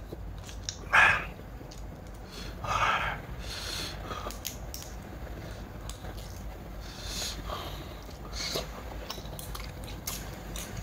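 Close-up eating sounds: chewing with small clicks, and two louder short noisy bursts about a second and about three seconds in.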